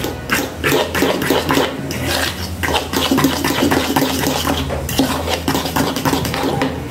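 Egg mixture with grated cheese being beaten briskly in a bowl with a metal utensil: a rapid, steady clatter of the utensil striking the bowl.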